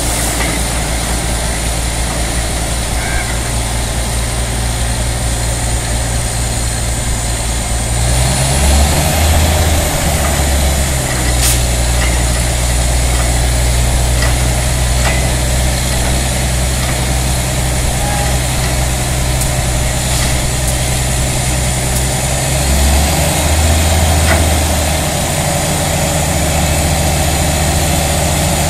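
Heavy diesel engines of a DTH borewell drilling rig and its compressor truck running steadily, over a constant rushing hiss of air and water blowing out of the borehole. The engine note drops and grows louder about eight seconds in, and goes back up to its first pitch near the end.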